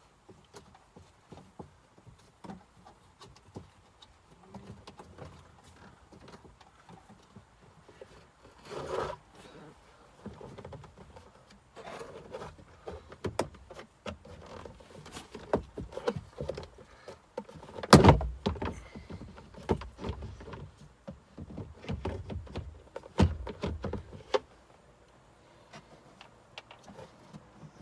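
Plastic glove box and its return mechanism being worked back into the dashboard by hand: irregular clicks, knocks and rustles, with the loudest knock about eighteen seconds in.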